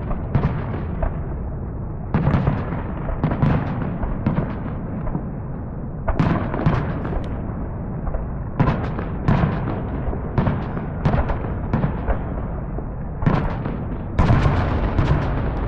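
Fireworks going off: a steady rumble under many sharp bangs and crackling pops that come in volleys, with a dense, loud cluster near the end.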